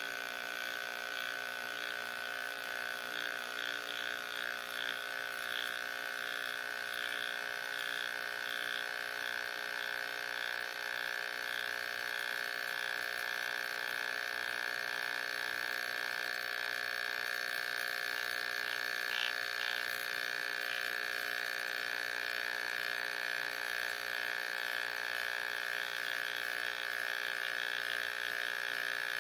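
Pressure washer running with a steady, high-pitched whine.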